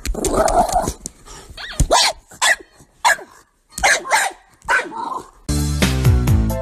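A small dog barking in a string of short, sharp yips, several about half a second apart. About five and a half seconds in, music with a steady beat takes over.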